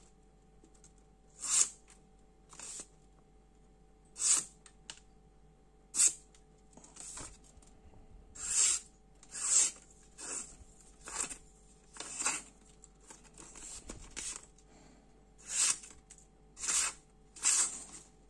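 Stainless-steel SOG Aegis FL folding knife blade slicing through a sheet of paper to test its sharpness: about a dozen short, separate cuts, roughly a second apart.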